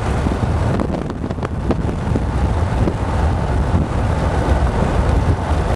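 Steady low rumble of road and wind noise inside a car driving on a highway, mixed with the hiss of the defroster and inverter cooling fans. A few light clicks come about a second in.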